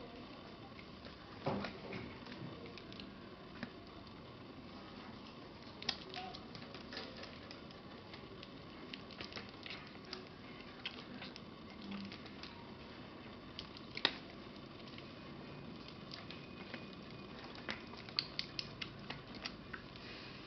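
Small kittens suckling and jostling at a milk bottle's teat: irregular small wet clicks and smacks over a steady hiss, coming thicker near the end.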